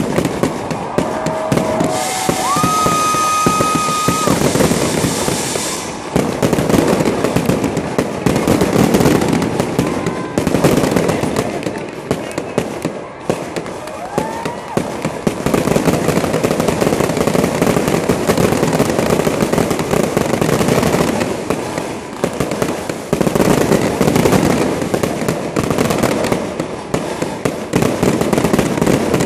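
Aerial fireworks exploding in rapid, continuous succession, dense bangs and crackling, with a few high whistles in the first few seconds.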